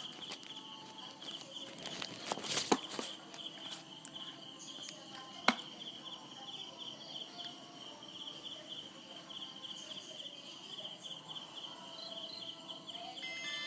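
Insect chirping steadily in a fast, even pulse, with a few sharp clicks and taps of handling over it, the loudest two about a third and halfway through. Just before the end an electronic tune starts.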